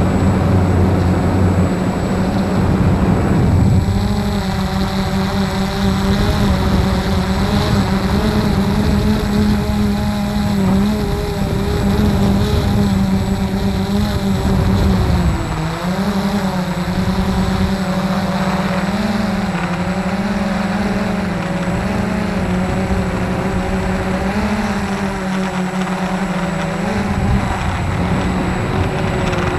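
Walkera QR X350 Pro quadcopter's brushless motors and propellers humming steadily in flight, heard close up from the camera on the drone. The pitch wavers slightly as the throttle changes, dipping briefly and settling a little higher about halfway through.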